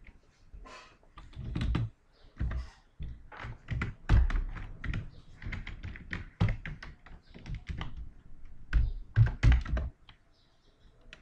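Typing on a computer keyboard: a run of irregular keystrokes, some heavier thunks among them, stopping about ten seconds in.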